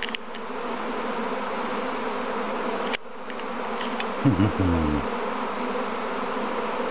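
Steady, dense hum of a very large honeybee swarm in flight, thousands of bees circling overhead as the swarm settles into bait hives, with a brief dip about three seconds in.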